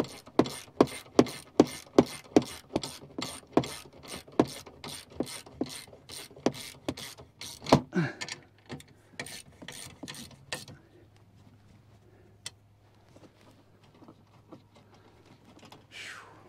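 Ratchet clicking in an even run of about three sharp clicks a second for some ten seconds, then slowing to scattered, fainter clicks, with a short falling squeak partway through.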